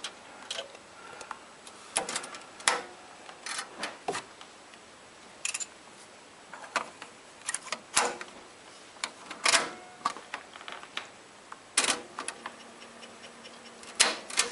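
Marantz 5010B cassette deck's piano-key transport buttons and cassette door worked by hand: a dozen or so sharp mechanical clicks and clunks, irregularly spaced a second or two apart.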